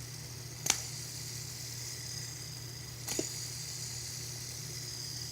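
Fidget spinner spinning: a faint steady whir, broken twice by a short click, about a second in and about three seconds in.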